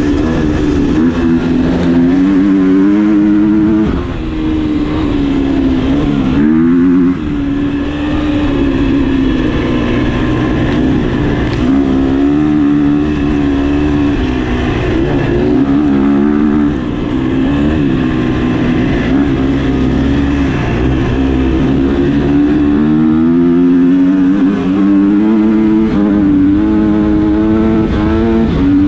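Husqvarna motocross bike's engine heard from on board while racing, its revs rising and falling continuously through the gears, with brief drops in revs about four and seven seconds in.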